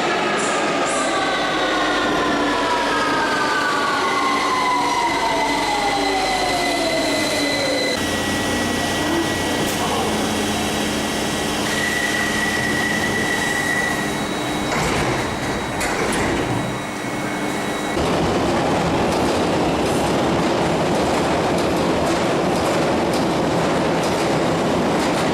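A 1992 Tube Stock train at a deep-level tube platform. Its motor whine falls in pitch over the first several seconds as it slows, then a steady electrical hum with a few clunks while it stands, and about two-thirds of the way through a loud, even rumble takes over.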